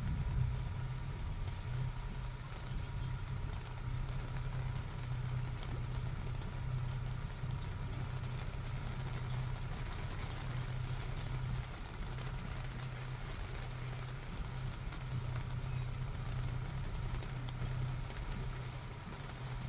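A motor idles steadily with a low hum under a steady patter of rain. About a second in, a bird gives a short, rapid high trill lasting about two seconds.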